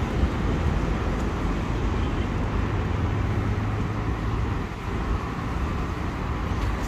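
Steady rumble of road traffic in the street, with no distinct events.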